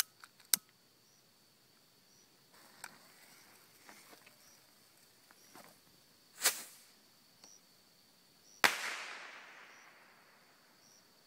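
Fireworks going off underwater: a sharp crack just after the start, a short muffled pop about six and a half seconds in, then a loud sharp bang near nine seconds that echoes and fades away over about two seconds.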